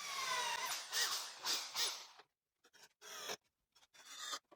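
A power driver running wood screws into cedar: one run in the first two seconds with a falling pitch, then a few short bursts.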